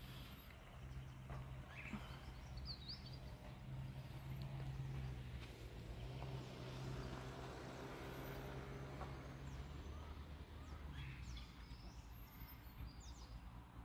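Faint scattered bird chirps over a low steady hum, with a few high calls about two to three seconds in and a small cluster of calls near the end.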